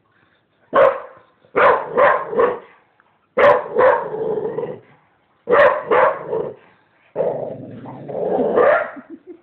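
A dog barking in short bursts, single barks and quick runs of two or three, about seven in all, then a longer drawn-out call near the end.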